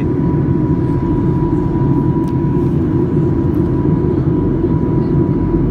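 Steady in-flight cabin noise of a Boeing 737-800: a dense, even rumble from its CFM56 engines and the airflow, with a thin steady whine running through it.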